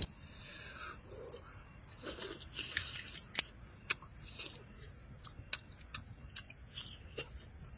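Insects chirring steadily as a high, thin background tone, with a few sharp clicks and light taps scattered through it.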